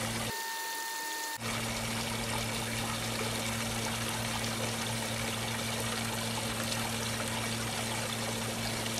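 Water pouring and trickling from the outboard's telltale as a wire clears the gunk clogging it, over a steady low hum. The sound drops out for about a second near the start.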